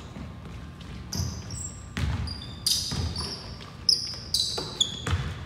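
Basketball play on an indoor court: the ball thumps on the floor at irregular intervals while sneakers squeak on the floor, the squeaks getting more frequent from about a second in.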